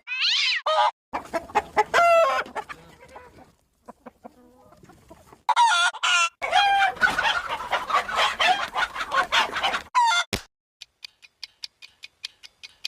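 Cartoon sound-effect clips of chickens clucking and squawking, in several separate bursts with short pauses between them. Near the end comes a sharp knock, then a run of quick faint clicks.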